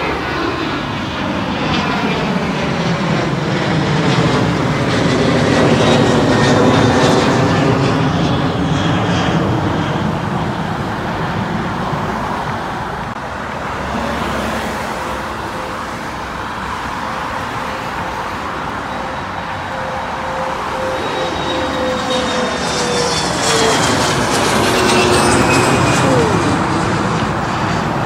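Airliners flying low overhead, the engine noise swelling to a peak and fading away twice, about 6 seconds in and again near the end, with a falling whine as the second one passes. Road noise from the moving car runs underneath.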